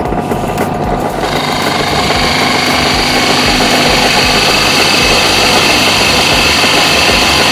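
ASAHI ZJ4113 8-inch benchtop drill press, with a 1/3 HP motor, running steadily; about a second in, its bit begins cutting into a wooden board, adding a louder, steady high-pitched cutting hiss over the motor hum.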